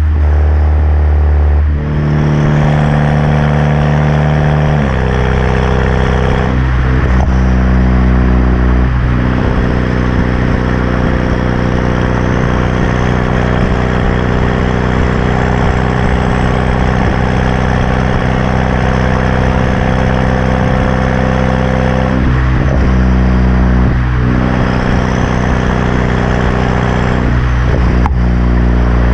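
BMW 328i's turbocharged 2.0-litre four-cylinder running through an open aftermarket exhaust with its muffler and resonator removed, idling after a cold start. Its pitch shifts in small sudden steps several times.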